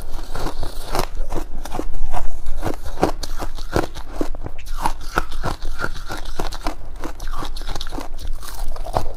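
Close-miked biting and chewing of chunks of frozen freezer frost ice: a rapid run of crisp crunches, several a second, loudest about two seconds in.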